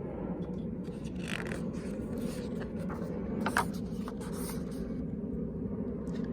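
Paper pages of a picture book being handled and turned, a few short rustling scrapes over a steady low background hum.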